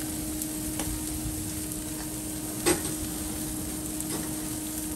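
Raw bone-in meat sizzling steadily on a gas grill's hot grates, with a few sharp clicks of metal tongs against the grate, the loudest a little past halfway.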